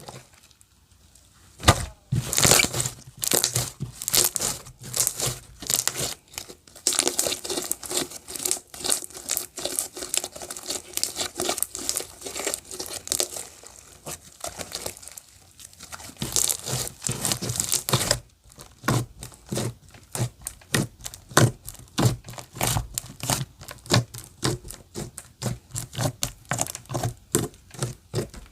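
Clear slime being squeezed and worked by hand, with dense crackling and popping of trapped air. About two-thirds of the way through it turns into a run of separate sharp pops, about four a second.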